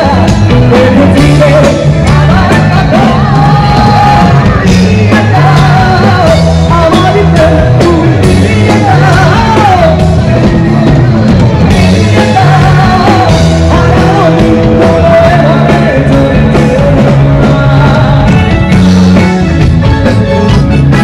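A man singing loudly into a microphone over a live band with keyboard, the voice carrying the melody above a steady bass line.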